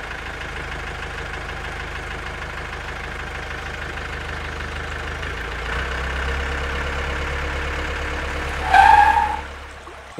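Tractor engine running steadily, getting louder with a deeper low hum about six seconds in. A short, loud, higher tone sounds near the end, and then the engine fades away.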